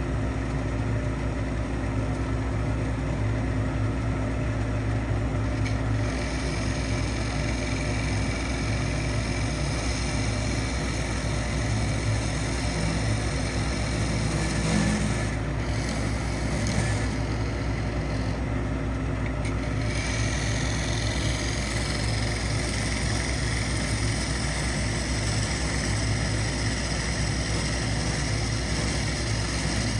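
Wood lathe running steadily with its motor humming under a hiss from the spinning pecan bowl blank; the hiss grows brighter about twenty seconds in.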